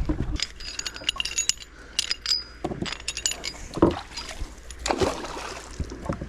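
Small metal fishing gear clinking and rattling as it is handled, with a few duller knocks.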